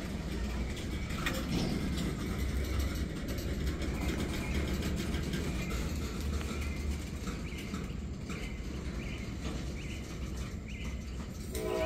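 Freight train of boxcars and tank cars rolling slowly past, a steady low rumble of wheels on the rails. Faint short high chirps are scattered over it.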